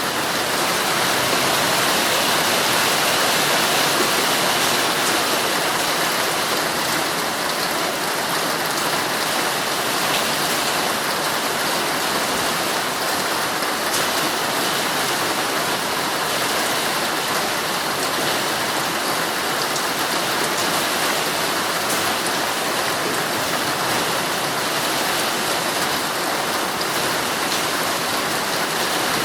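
Heavy rain falling steadily on a tent, heard from inside, a constant hiss with faint ticks of single drops through it.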